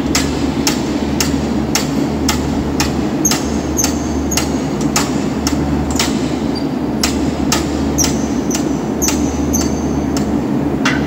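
Metal weights clinking about twice a second, each click with a short metallic ring, as a forearm exercise is done in repetitions, over a steady low hum.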